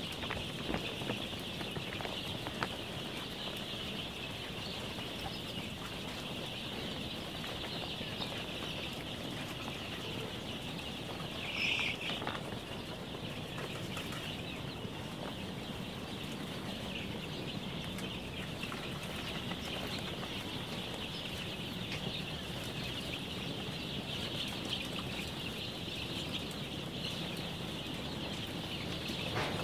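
Thousands of 12-day-old chicks peeping together in a dense, continuous chorus of high chirps. One louder flurry of cheeping comes about twelve seconds in.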